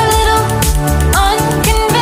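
Background pop music with a steady beat and a held, gliding melody line.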